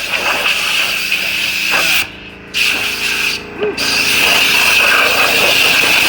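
Pneumatic tool running on shop air with a steady hissing whine, stopping abruptly for a moment about two seconds in, again around three and a half seconds, and near the end as the trigger is let off.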